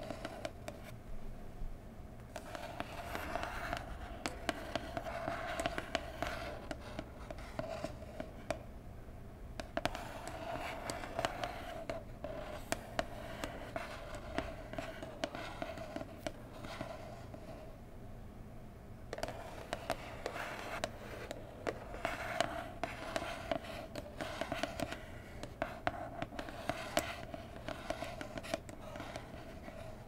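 Long fingernails scratching slowly over a printed cardboard mug box: a continuous dry scratching texture dotted with small clicks from the nail tips. The scratching eases off briefly a little past halfway, then resumes.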